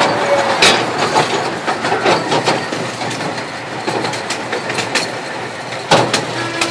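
Ride-on miniature train running along its track, the open passenger car rattling with a run of sharp clacks and knocks from the wheels and car; two louder knocks come about half a second in and near the end.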